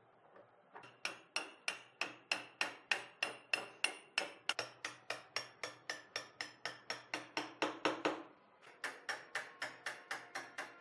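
Steady hand hammering, about three blows a second, each strike with a short ring. The hammering pauses briefly about eight seconds in, then resumes.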